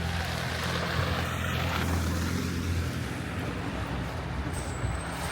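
A motor vehicle's engine running close by: a steady low rumble, heaviest over the first three seconds, over a steady hiss of street noise. A faint thin high whine comes in near the end.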